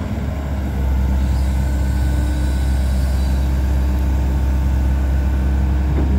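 2008 John Deere 135C excavator's diesel engine running steadily, a little louder from about a second in, while the hydraulics move the boom and arm out and down.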